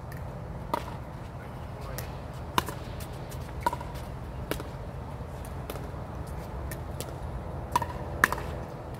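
A pickleball rally: paddles hitting a plastic pickleball, a sharp pop with a short ring at uneven intervals of about a second, with fainter clicks in between.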